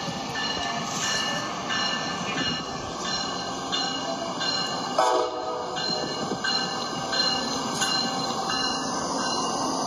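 LEGO passenger train running along plastic track with a regular clicking about twice a second as the wheels cross the track joints. A short horn sounds about five seconds in.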